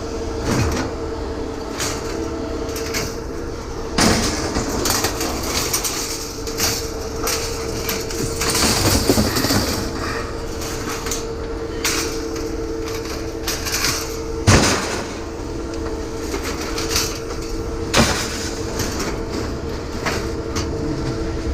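Scrap being handled in a pickup truck bed: knocks and clanks, a few sharp bangs among them, over a steady mechanical hum.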